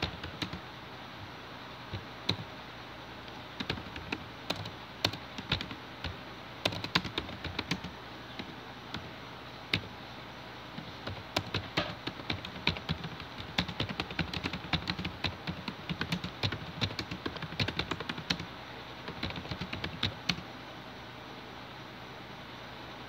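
Fast, irregular typing on a computer keyboard. The keystrokes come in quick flurries with short pauses, over a steady faint hiss, and they stop shortly before the end.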